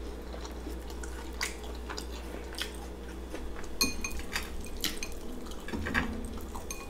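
Soft eating sounds: chewing battered deep-fried seafood, with wet, sticky handling as a piece is dipped by hand into a glass bowl of sauce. A few light clicks against the glass about four seconds in, over a low steady hum.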